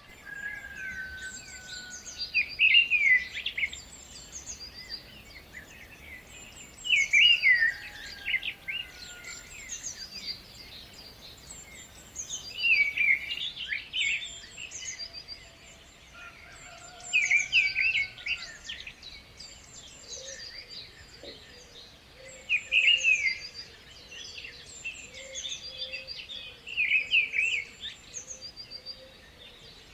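Birds singing. A short, loud chirping phrase comes about every four to five seconds over a steady background of higher chirps.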